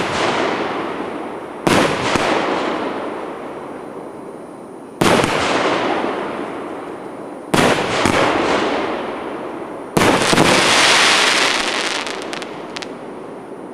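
Fireworks cake (Russian Fireworks 'Salyut Stolichny', 1-inch and 1.6-inch shots) firing: a sharp bang every two and a half to three and a half seconds, each trailing off in a long echoing rumble. The last, about ten seconds in, is followed by a longer hiss and a few scattered crackles near the end.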